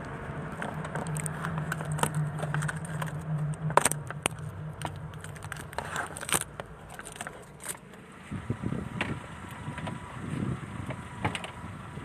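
Car driving, heard from inside the cabin as a steady low hum, with sharp clicks and rattles like keys and handling. The hum dies away about eight seconds in, leaving irregular rustling.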